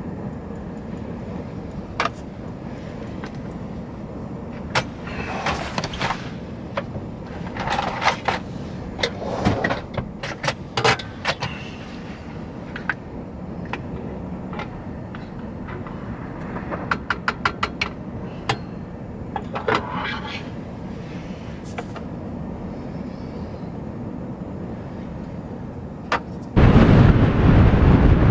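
Steady low wind rumble with scattered knocks and clicks of pots and utensils being handled, including a quick run of about eight ticks in a second. About 26 seconds in, a sudden loud rush of wind on the microphone takes over.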